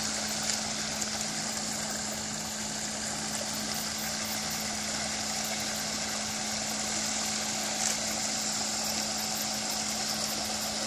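Small garden waterfall splashing steadily into a pond, over a constant low electric hum.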